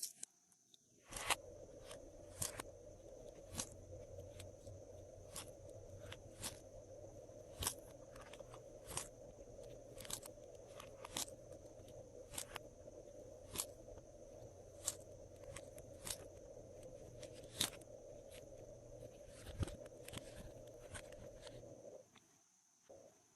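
Glossy slime being mixed and folded by hand, giving sharp little clicks and pops about once a second over a faint steady hum. The clicks stop with the hum about a second before the end.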